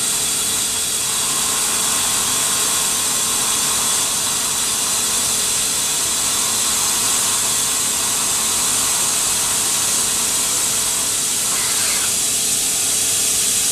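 CNC milling machine cutting a metal part with an end mill under flood coolant: a steady hiss of coolant spray and cutting, with a faint steady hum from the spindle underneath.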